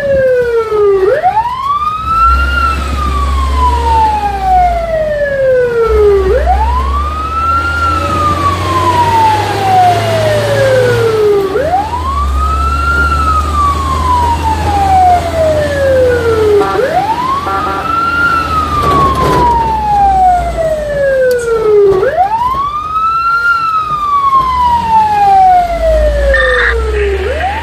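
Fire truck siren heard from inside the cab, sounding a repeating wail: each cycle rises quickly and then falls slowly over about four seconds, about every five seconds. The truck's engine runs underneath as a low rumble.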